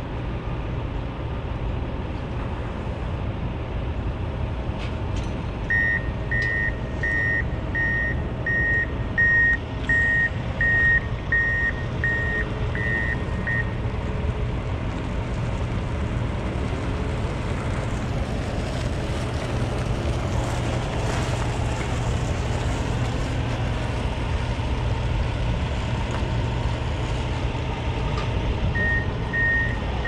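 A vehicle's reverse alarm beeping evenly, about a dozen beeps at roughly one and a half a second, stopping about halfway through and starting again near the end, over a steady low rumble.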